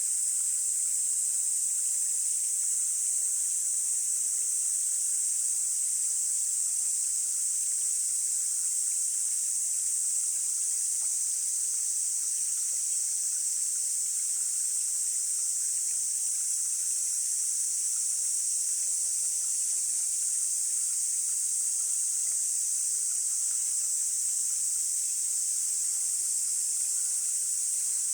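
A steady, high-pitched drone of insects calling, with a mountain stream running more faintly underneath.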